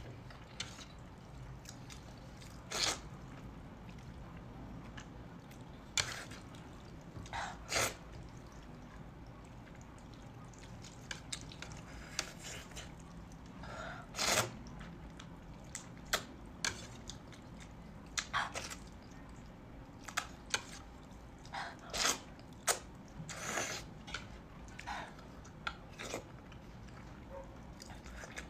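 Close-miked eating sounds: slurping and chewing glass noodles in a wet sauce. The sounds come in short, irregular bursts of wet mouth noise and small clicks, with the loudest slurp about halfway through.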